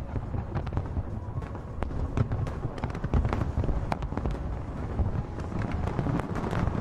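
Aerial fireworks display: shells bursting in a rapid, irregular series of bangs and crackles over a continuous low rumble.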